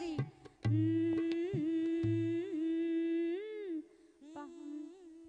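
A singer's voice holds one long note with small ornamental turns and bends, a melismatic phrase of a Marathi folk song, over two low booming beats near the start. The note drops away in level about four seconds in and carries on more faintly.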